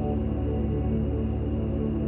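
Background music of sustained, held notes, steady in level.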